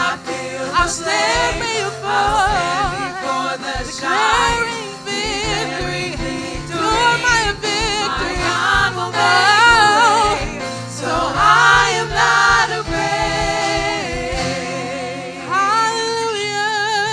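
Gospel worship music: voices singing with vibrato over a band, with steady low bass notes and beat-like hits in the low end until about three-quarters of the way through.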